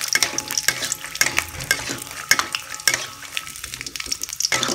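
Peanuts frying in hot oil in a wok, sizzling, while a metal spatula scrapes and knocks against the wok to stir them. The scraping lets up for about a second near the end.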